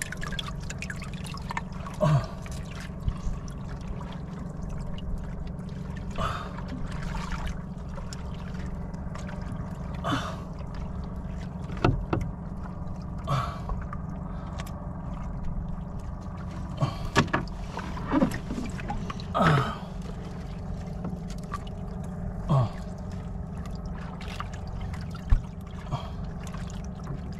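Sharp splashes and knocks, about ten spread irregularly, from a freshly caught grouper being handled in the water-filled hull of a wooden fishing boat while the hook is worked free, over a steady low rumble.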